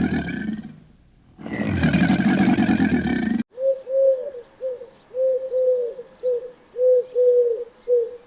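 Two long, loud, low calls from a large animal, then, after a sudden cut, a bird giving about ten short arched notes, all at the same pitch.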